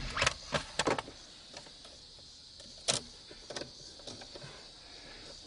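Handling of the 350Z's plastic center-console trim and shifter surround: a handful of sharp plastic clicks and knocks, three close together at the start, a louder one about three seconds in, then lighter taps.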